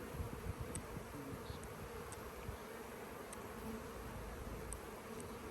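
Honeybees from an opened, heavily populated hive buzzing in a steady hum.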